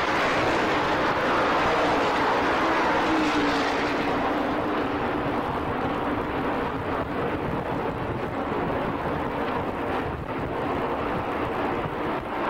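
A pack of V8 NASCAR Modified race cars running at speed around the track, heard as a dense, distant engine drone through a camcorder microphone. It is loudest in the first few seconds and then eases off as the cars move away.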